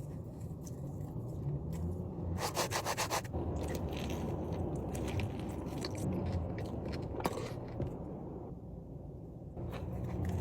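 Close-miked eating sounds: chewing and mouth noises with scattered small clicks, and a brief run of rapid crackling about two and a half seconds in.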